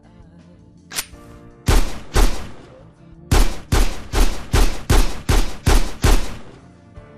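Dubbed-in gunshot sound effects from Battlefield 2: two shots about half a second apart, then after a pause a steady run of eight shots at about two and a half a second, over background music. A short click comes about a second in.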